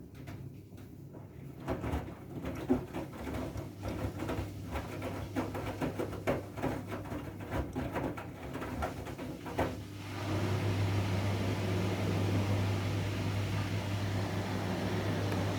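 Siemens iQ washing machine running a wool/silk cycle: a run of irregular soft knocks and sloshing as the drum turns, then about ten seconds in a motor starts a steady hum with a rushing noise.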